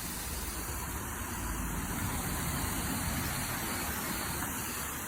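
Steady hiss of water spraying from a 12-volt portable electric pressure washer, with a low rumble underneath.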